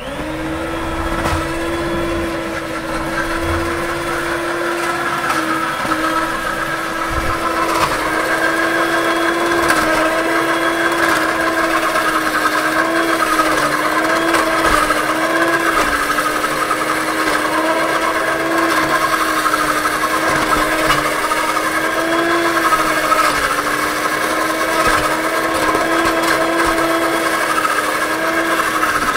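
Electric hand mixer running steadily, its beaters whisking thick chocolate cake batter; the motor's hum wavers slightly in pitch now and then.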